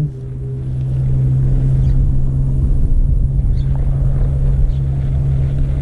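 A steady, low, engine-like drone holding one pitch, with rumble beneath it, swelling over the first second and then running evenly.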